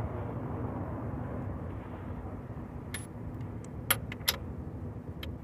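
Steady low mechanical rumble, with several sharp clicks about three to five seconds in, the loudest two close together.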